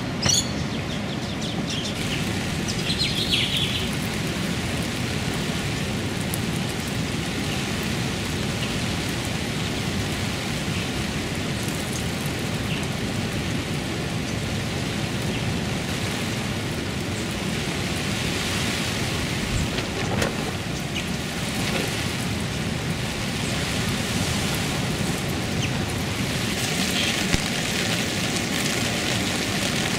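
Steady rain, with a few short bird chirps near the start and again near the end.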